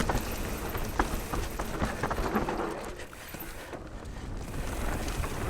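Nukeproof Mega 290c enduro mountain bike riding down a rough dirt trail: tyres running over loose ground with scattered sharp knocks and clanks from the bike, and wind rumbling on the camera microphone. The noise drops a little past halfway, then builds again.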